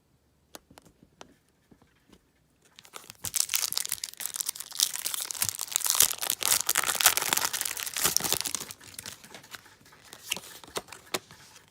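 A Pokémon booster pack's foil wrapper being torn open and crinkled. A few small clicks come first, then about six seconds of dense crackling, then lighter rustles near the end.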